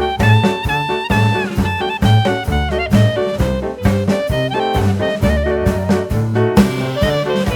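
Instrumental background music: a steady beat with a bass line and a horn melody, brass-like and jazzy.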